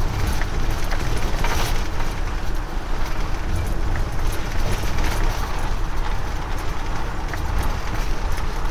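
Wind rushing and buffeting through the open front windows of a Swift Select 122 motorhome on the move, over a steady low road and engine rumble.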